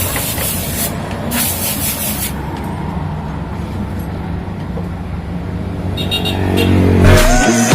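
Honda Click scooter's single-cylinder engine running steadily at idle, a low even hum with some hiss over it. Electronic music comes in near the end.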